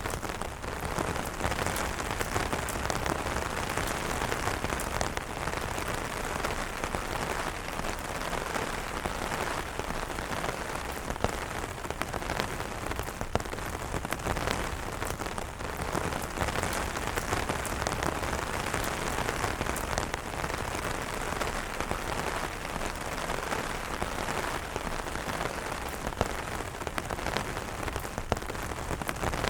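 Steady rain falling on umbrellas: an even hiss of rain with many separate drop hits scattered through it.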